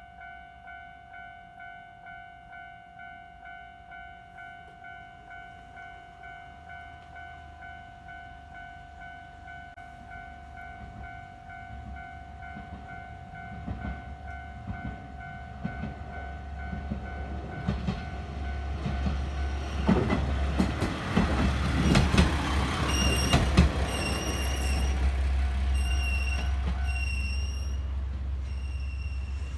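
Japanese level-crossing warning bell ringing with a regular clang, about one and a half strokes a second, while a single-car train approaches with a rising low rumble. The train passes loudly about 20 seconds in, with wheel clicks over the rail joints. Short high beeps repeat near the end, and the bell stops a few seconds before the end.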